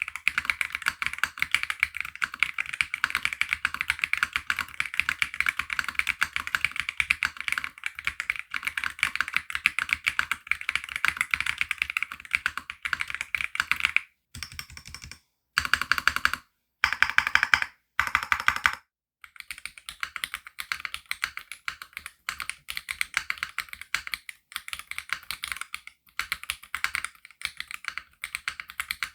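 Fast, continuous typing on the Womier RD75 Pro mechanical keyboard with Womier Full POM switches, keystroke after keystroke clacking. Several short gaps break it about halfway through, and after them the keystrokes sound brighter and less full.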